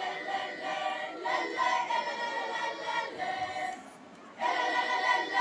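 Junior high school choir singing held chords in several voices, pausing for about a second just past three seconds in before the next phrase comes in louder.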